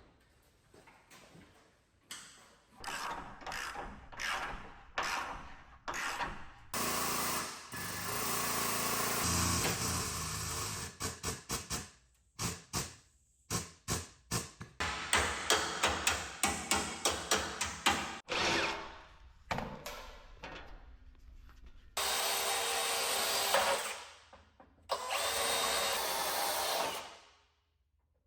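Power tool running in repeated bursts, some brief and some several seconds long, with a quick run of short pulses near the middle.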